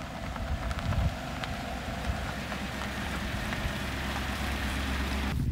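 Chevrolet Avalanche pickup towing an enclosed cargo trailer driving past on a rocky dirt road: engine running with a steady low rumble and tyres rolling over dirt and stones, with some wind on the microphone.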